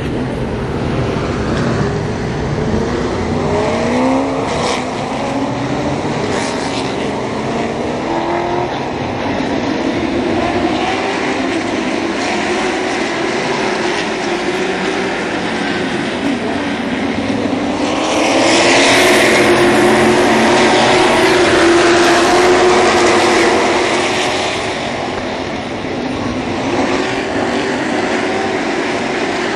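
A pack of Sportsman-class stock cars racing past at speed, their V8 engines running hard, with engine pitches rising and falling as the cars go by. The sound is loudest for several seconds a little past halfway, as the field sweeps close by.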